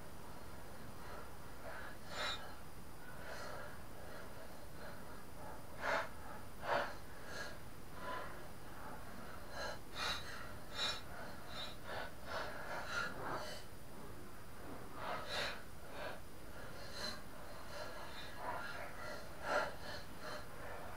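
Scattered short clicks, taps and clinks of hand work on the cutting disc and blades of a Honda HR216 lawn mower tipped on its side, as the blades are changed. The sharpest knocks come about six and seven seconds in and near the end.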